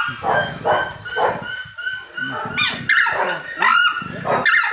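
A large bird giving a rapid series of loud, harsh, goose-like honking calls.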